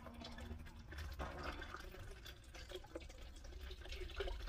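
Outdoor garden water tap being turned shut by hand: a faint hiss of water in the tap and pipes, with a few small clicks from the handle.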